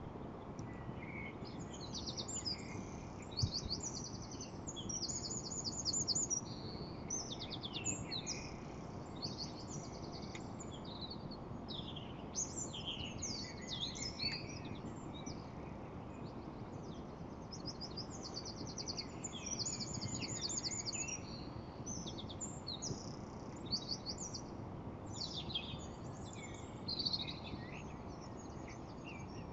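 Several small birds chirping and singing, with short calls and fast trills overlapping, over a steady low background noise.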